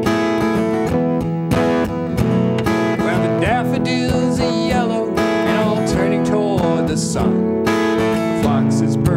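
Two cutaway acoustic guitars strummed and picked together in a steady rhythm, playing the introduction to a folk song.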